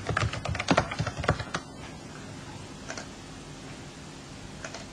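Computer keyboard keystrokes as a password is typed: a quick run of taps in the first second and a half, then a couple of single clicks later on.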